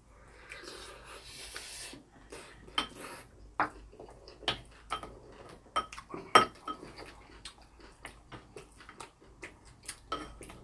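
Eating utensils tapping and clinking against dishes during a meal: scattered short, sharp clicks, the loudest a little past halfway, with soft rustling in the first couple of seconds.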